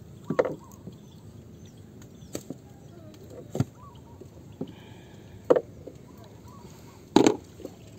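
Scattered sharp knocks and taps on the bamboo and wood of a small outrigger boat, about five in eight seconds, the loudest near the end.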